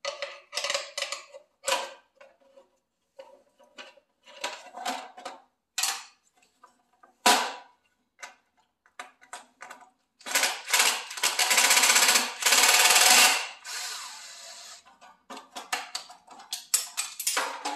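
Clicks and knocks of a Makita miter saw's plastic blade guard and its parts being handled, with a cordless drill/driver running for about three seconds about ten seconds in as it backs out the guard's screw. More clicks and rattles follow as the guard comes off.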